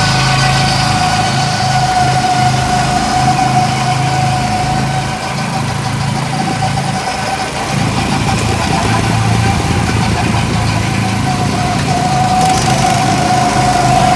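Go-kart's small gasoline engine running steadily while the kart is driven, a low drone with a steady high whine over it. The sound dips a little about five seconds in and comes back up by about eight seconds.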